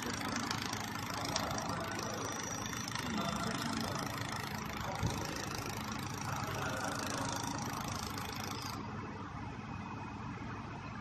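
Steady mechanical hum and hiss of a YAG laser welding machine running as it welds a stainless steel sphere. The high hiss drops away about nine seconds in.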